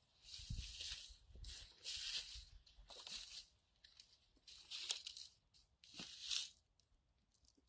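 Footsteps crunching over debris on the floor, about seven steps, each a short gritty crunch, slowing and stopping about a second before the end.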